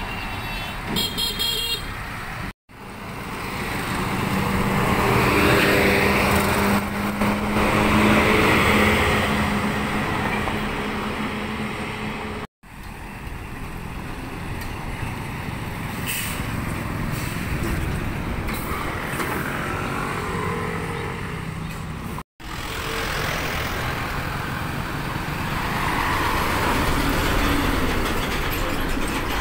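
Roadside traffic dominated by heavy semi-trailer trucks running and pulling past, with a short horn toot about a second in. A steady engine note runs through the middle stretch, and the sound drops out briefly three times.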